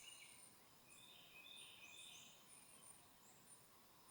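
Faint songbirds calling in woodland: thin, very high notes repeating every second or so, with a lower, busier song phrase about a second in.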